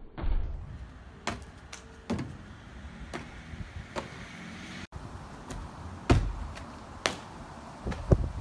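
A series of sharp thumps and scuffs of a freerunner's trainers landing and pushing off on paving and concrete walls, about one a second, the loudest about six seconds in, over a low background rumble.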